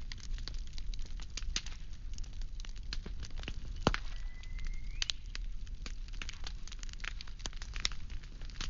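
Firewood burning, crackling steadily with many sharp pops, one louder pop about four seconds in. Right after it a thin whistle holds for about a second and then rises in pitch.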